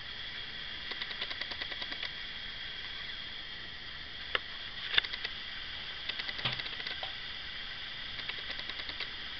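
Computer mouse clicking: three quick runs of small ticks, like a scroll wheel being turned, and a few sharper single clicks in the middle, over a steady hiss.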